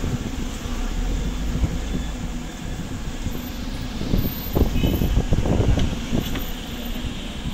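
Low, steady street rumble like passing traffic, with a louder stretch of knocks and clatter about four seconds in.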